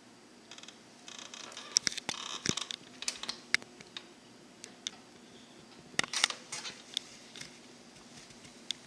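Scattered light clicks and short rustles in a quiet room, busiest for a couple of seconds after the first second and again around six seconds in, over a faint steady hum.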